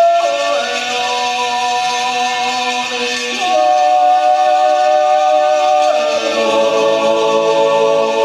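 Male yodel choir singing a traditional Appenzell Zäuerli, a wordless natural yodel in long held chords that glide to a new chord three times, with reverberation from the church. Over it runs the steady ringing whir of coins rolled round inside bowls (Talerschwingen).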